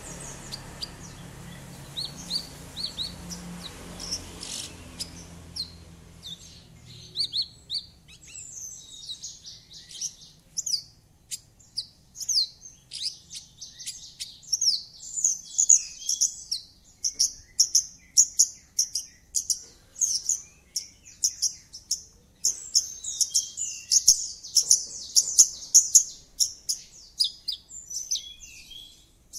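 Javan bush lark (branjangan) singing a full-voiced song of quick, high chirps and trills. It is sparse at first, then a dense, rapid run from about eight seconds in, with a brief pause past the middle.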